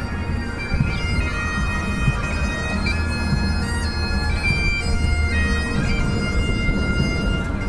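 Bagpipes playing a melody over a steady drone, the chanter stepping from note to note.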